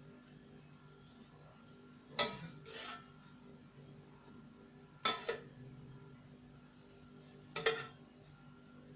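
Spoon knocking against a dish four times, with short sharp clinks spaced a few seconds apart, over a faint steady hum.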